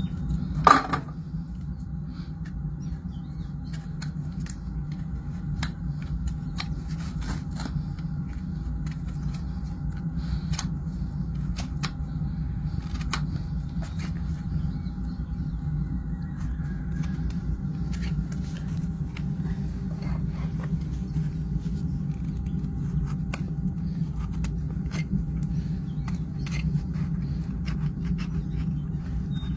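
Hoof knife paring the sole and frog of a Shire horse's hoof: irregular short scraping, slicing strokes over a steady low hum, with one louder short sound about a second in.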